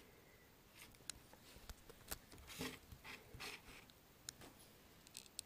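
Faint small clicks and rubbing of fingers working on the open tablet's circuit board, pressing the tiny speaker connector back into its socket. The handling noise is light and scattered, with a few brief scrapes about halfway through.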